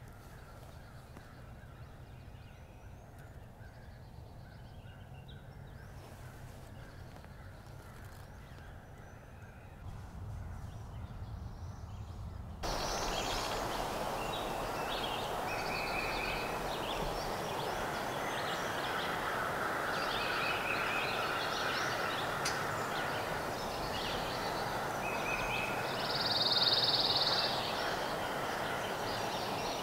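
Woodland ambience with scattered bird calls. About thirteen seconds in the background hiss rises suddenly, and a louder high bird call stands out near the end.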